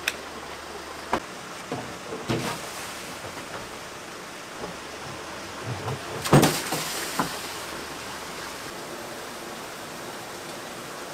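Steady rush of water pouring from a large hose into a live-fish transport tank, with hollow knocks of its plastic tank lids being lifted and set down, the loudest about six seconds in.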